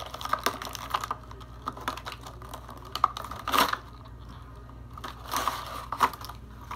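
A small cardboard box being torn open and its paper and plastic packaging handled by hand. The sound is irregular rustling and crinkling with scattered clicks and snaps, and the loudest rustle comes a little past the middle.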